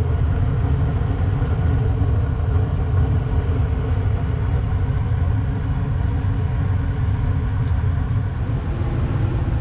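Gas furnace running with its burners lit: a steady low rumble with faint steady high tones above it. It has started up normally after a tune-up, with good flames.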